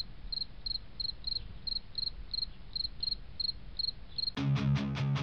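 Cricket chirping: short, clear, high chirps repeated about three times a second over a faint low hum. About four and a half seconds in, music starts with rapid, evenly picked guitar notes.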